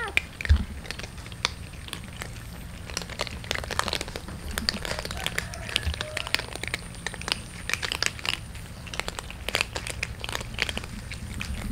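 Several cats crunching dry kibble: a dense, irregular crackle of small crunches and clicks from many mouths chewing at once.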